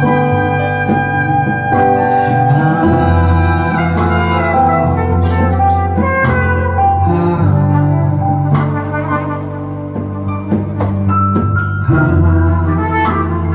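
Live band music: an acoustic guitar and an electric bass play an instrumental passage under a long-held melodic lead line.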